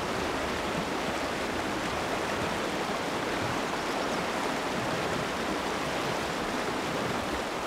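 Fast mountain river rushing over rocks and through whitewater riffles, a steady, even rush of water.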